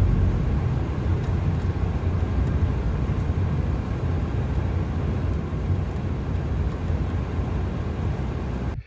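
Steady low rumble of a car's engine and road noise heard from inside the cabin while driving uphill; it cuts off suddenly at the very end.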